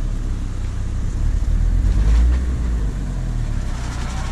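Audi quattro Turbo's engine running as the car manoeuvres, with the revs briefly rising about two seconds in and then easing back.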